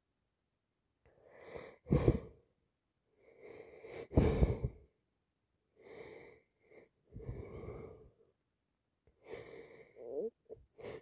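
A person with a heavy head cold building up to sneeze: wheezy, gasping in-breaths that break into two loud, wet sneezes about two and four seconds in, followed by more gasping build-up breaths near the end.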